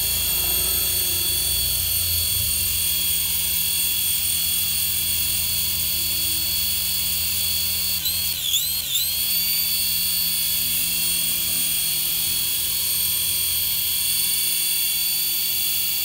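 Toy coaxial RC helicopter's small electric motors and twin rotors running in a low hover: a steady high-pitched whine made of several tones. About eight seconds in, the pitch dips and recovers twice in quick succession.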